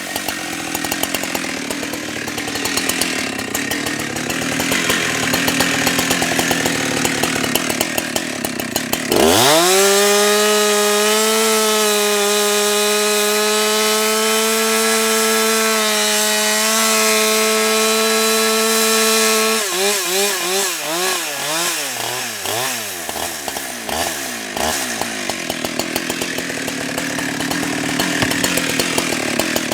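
Husqvarna 365 two-stroke chainsaw cutting through logs under load. About nine seconds in it revs up suddenly to a steady high-pitched scream at full throttle out of the wood, held for about ten seconds, then the revs drop and waver and it goes back to cutting.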